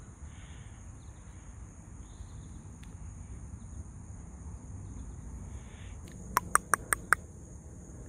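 Steady high-pitched drone of insects such as crickets over a low background rumble. Near the end comes a quick run of five sharp clicks, the loudest sound here.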